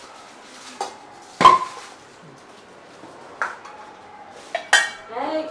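Metal kitchenware clanking: about five separate knocks and clinks, the loudest about one and a half seconds in, ringing briefly.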